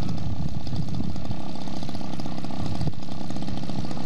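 Zenoah G62 single-cylinder two-stroke petrol engine of a large model biplane running steadily at idle, its fast even firing pulses unbroken.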